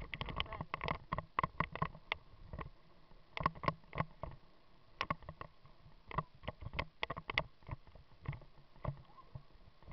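Mountain bike rolling fast over a rough gravel dirt road, rattling and knocking irregularly as it jolts over the bumps, busiest in the first couple of seconds.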